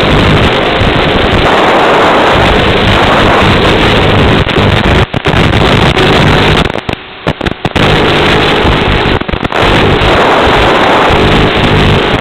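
Loud, steady rushing noise on an FPV plane's onboard audio downlink while the plane glides with its motor drawing almost no current. It drops out briefly about five seconds in, for about a second around seven seconds, and again near nine and a half seconds.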